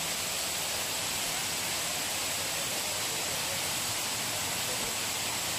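Steady rushing hiss of flowing water in the rainforest, with a thin, high, steady tone running over it.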